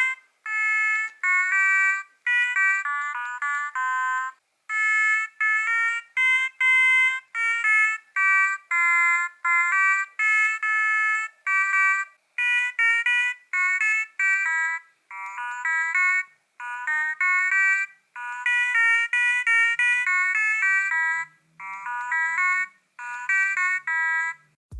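High-pitched electronic melody of short, clear beeping notes, played in quick phrases separated by brief silences.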